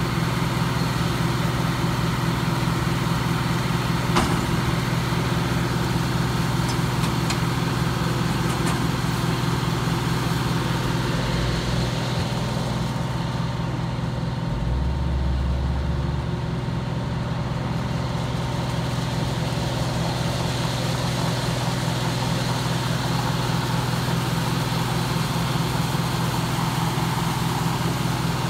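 Fire engine's diesel engine running steadily at a constant speed, driving its pump as it drafts water from a portable dump tank through a hard suction hose. A single sharp click sounds about four seconds in.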